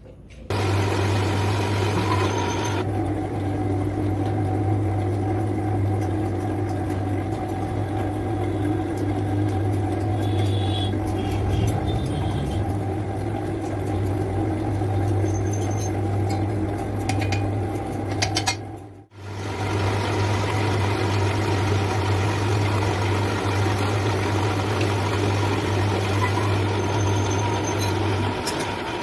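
A machine motor running with a steady low hum. It cuts out abruptly for a moment about two-thirds of the way through, then runs on.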